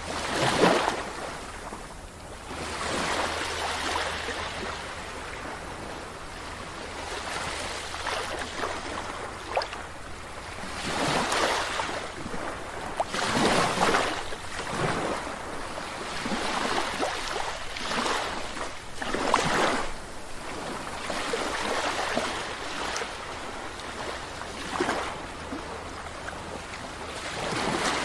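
Sea waves breaking and washing on a beach, a steady rush of surf that swells with each wave every few seconds.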